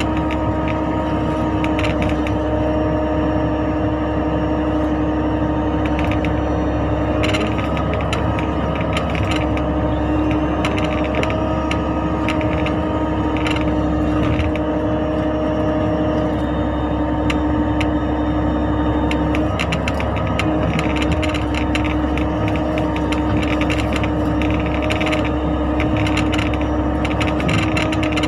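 Mini excavator's diesel engine running steadily under load, with a steady whine that dips briefly twice and scattered metallic clicks and rattles from the machine working.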